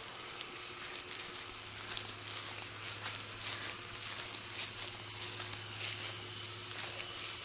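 Steady high-pitched insect chorus, shrill and hissing, growing louder about three and a half seconds in.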